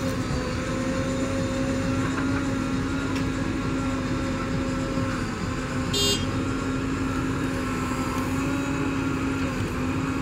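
JCB 3DX backhoe loader's four-cylinder diesel engine running steadily under hydraulic load as the backhoe digs and lifts soil. About six seconds in comes a brief high-pitched squeal.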